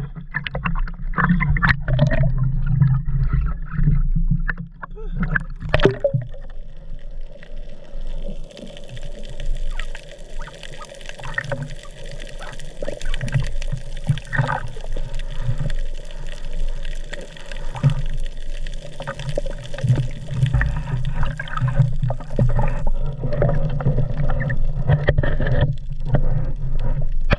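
Seawater sloshing and gurgling around a waterproof action-camera housing as it moves at and under the surface, sounding muffled, with a few sharp knocks in the first six seconds and a hissier stretch through the middle.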